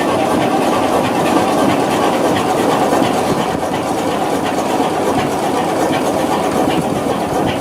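Large multi-cylinder Körting stationary diesel engine with air-blast fuel injection, running steadily with a dense mechanical clatter and a regular ticking.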